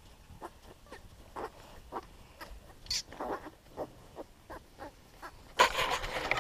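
A farrowing sow and her newborn piglets grunting and squeaking in short calls, about two a second, with one higher squeal about three seconds in. Near the end comes a loud rustle of bedding.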